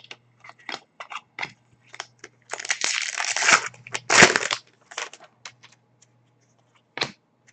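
Crinkling and rustling of a trading-card pack wrapper being handled and torn, with scattered light clicks of cards being handled. The loudest crinkling comes in two bursts in the middle.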